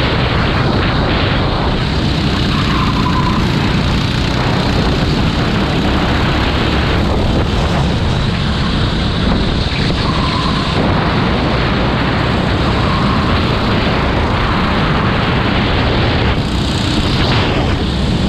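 Go-kart engine running continuously, heavily buffeted by wind on the microphone.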